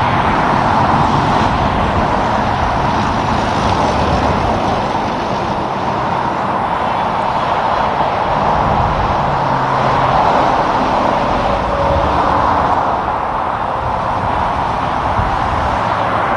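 Highway traffic: a steady rush of tyre and engine noise from passing vehicles, with a low engine hum underneath.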